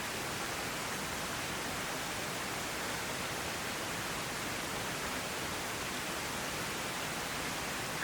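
Steady rushing water noise, even and unbroken, with no separate drops or splashes standing out.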